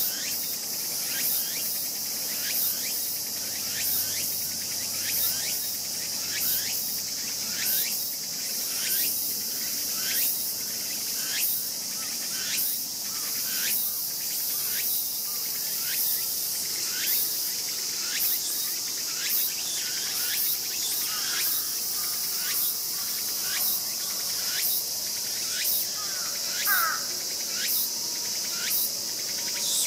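A steady chorus of night insects (crickets), with a short sharp call repeating evenly about every two-thirds of a second. A brief, different wavering call comes near the end.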